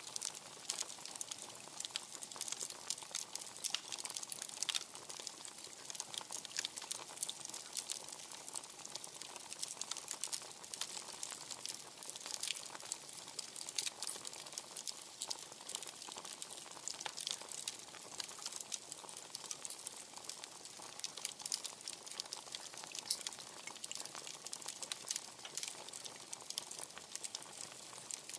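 Wood fire crackling steadily: many small, irregular pops and snaps over a soft hiss.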